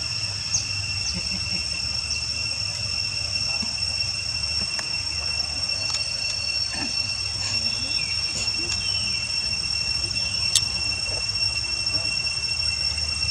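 Insects droning in a steady high-pitched buzz held at two pitches, over a low steady rumble. A few faint short chirps come and go, and a sharp click sounds about ten and a half seconds in.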